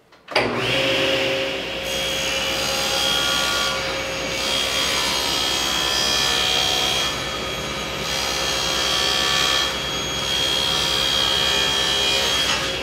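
SawStop cabinet table saw starting up with a rising whine as the blade spins up, then ripping a plywood blank along the fence with a steady cutting sound. The cutting sound drops away near the end.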